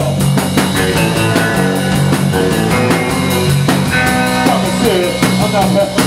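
Rock band playing live: electric guitar, electric bass and drum kit over a steady beat.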